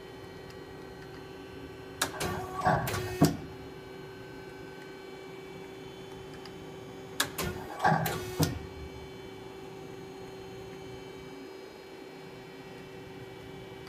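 Hyundai Wia L150A CNC lathe running with a steady hum, broken twice, about two and seven seconds in, by a short burst of clunks and whirring from its moving parts.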